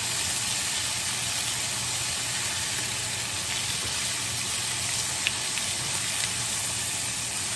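Bacon sizzling steadily in a screaming-hot cast-iron skillet, with a few faint ticks as tongs turn the strips.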